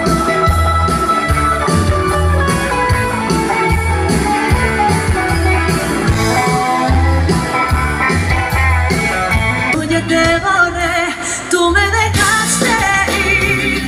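Live rock and roll band music: electric guitars over a steady drum beat, with singing. About ten seconds in, the music changes to a different passage with a voice singing in a wavering, vibrato-laden line.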